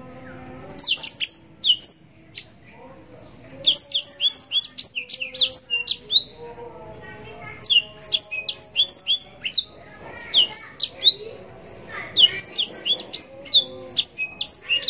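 Blackthroat (black-throated canary) singing in long, rapid bursts of sweeping high chirps and trills. It pauses briefly between phrases, about four times.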